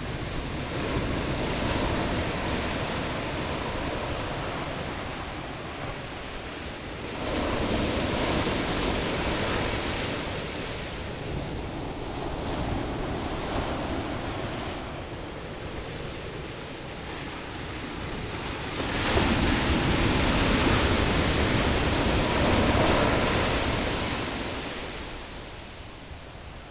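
Ocean surf breaking and washing up a sandy beach, a steady rushing that swells louder twice as bigger waves come in, then eases off near the end.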